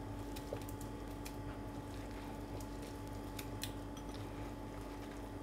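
Wet chopped spinach dropped by hand from a glass bowl into a pot of thick soup: faint soft squishes and a few small clicks over a steady low hum.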